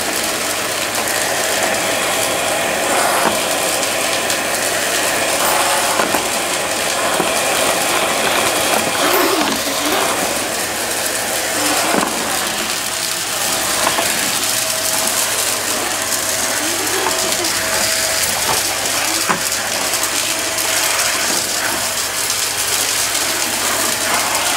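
Stick vacuum running steadily across a hardwood floor, sucking up scattered crunchy debris that now and then clicks and rattles up the wand.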